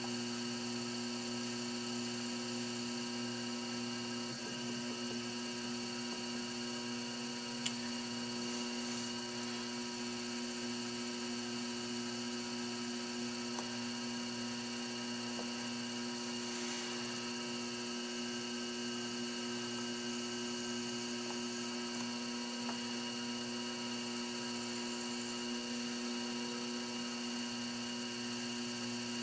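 Electric potter's wheel running at a steady speed, a constant even hum, with faint scraping as a trimming tool cuts the leather-hard clay of the upturned bowl. A single sharp click about eight seconds in.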